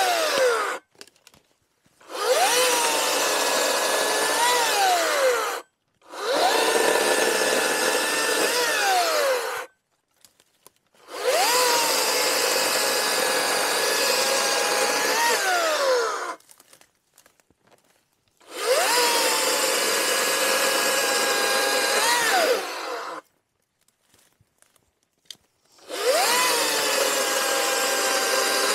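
Atlas 80V brushless 18-inch cordless electric chainsaw cutting through dry logs, started and stopped about five times. Each run spins up quickly to a steady whine with the chain chewing wood, rises briefly in pitch, then winds down when the trigger is released.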